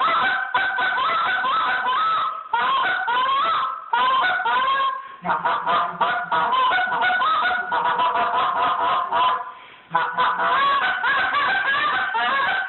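Buck Gardner Honker Hammer clear acrylic short-reed goose call blown by hand: a fast string of honks and clucks, each note breaking sharply in pitch. A stretch of rapid chattering clucks comes in the middle, and there is a brief pause about nine and a half seconds in.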